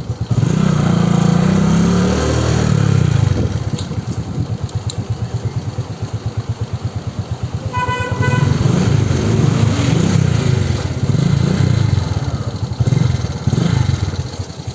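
Motorcycle engine running under way, its pitch rising and falling with the throttle several times. A horn sounds briefly about halfway through.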